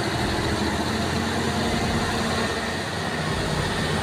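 A heavy machine's engine running steadily, its note shifting slightly up and down.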